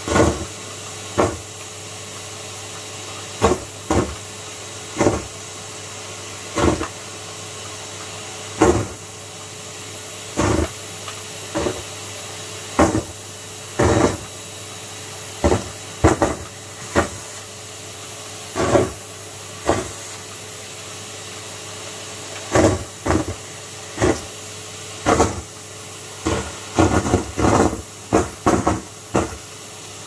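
Numatic James canister vacuum cleaner running steadily, broken by a long series of short, loud rushes as deflated rubber balloons are sucked up the hose one after another. The rushes come about once a second and bunch closer together near the end.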